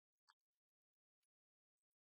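Near silence, with a couple of faint brief clicks.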